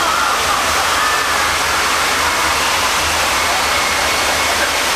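Special-effects flood water rushing into a mock subway station, a loud, steady roar over a deep, continuous rumble from the ride's earthquake effect.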